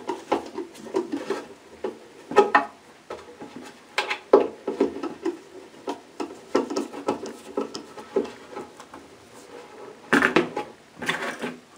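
Small screw being turned by hand with a bit screwdriver into stained wood, cutting its own hole: irregular clicks and short creaks of the threads biting and the bit turning, with a cluster of louder knocks about ten seconds in.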